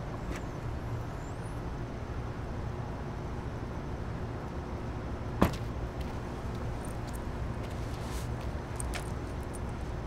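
Steady low background rumble with a faint steady hum, broken by one sharp click a little past halfway.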